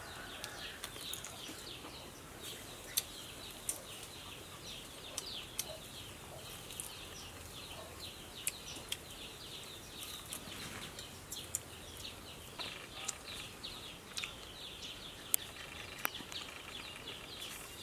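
Small birds chirping continuously, many short falling chirps, with a few sharp clicks and smacks of someone eating.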